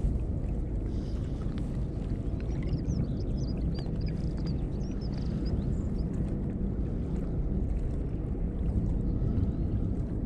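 Wind buffeting the microphone as a steady low rumble beside choppy estuary water, with faint high chirping in the background for a few seconds partway through.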